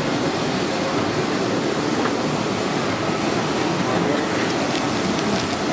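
Steady din of a busy indoor food hall: many voices blending into a constant hum, with no single sound standing out.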